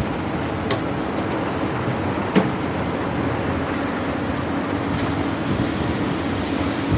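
Two lift cor concrete hoist machines' engines running together in a steady drone with a constant hum, broken by a few sharp metallic clicks.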